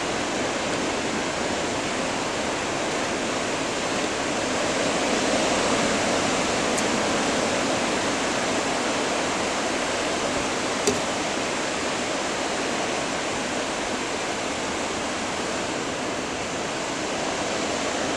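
Steady hiss and wash of breaking ocean surf, swelling slightly a few seconds in. A single sharp click about eleven seconds in.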